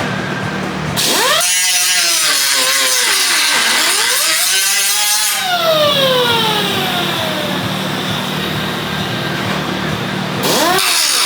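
Hand-held power tool motor speeding up sharply, dipping and revving again, then slowly winding down in pitch, with another spin-up near the end.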